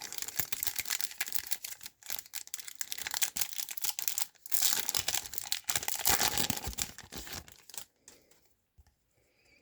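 A trading-card pack wrapper being torn open and crinkled by hand, a dense crinkling rustle that dies away near the end.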